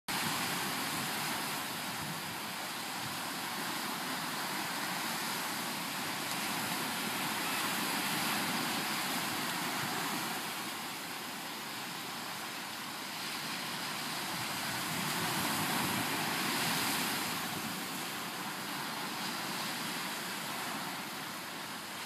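Small surf breaking and washing up a sandy beach: a steady rush of noise that swells and eases every several seconds.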